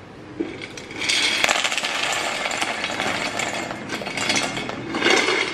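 Dry soya chunks poured into a stainless steel mixing bowl: a dense rattle of many small pieces hitting the metal, starting about a second in and going on for several seconds, with a louder clatter near the end.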